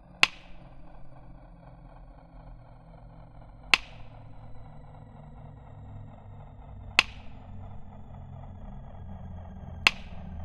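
Dark soundtrack drone for end credits: a low rumble slowly growing louder, faint sustained high tones above it, and a sharp percussive hit with a short ringing tail about every three seconds, four in all.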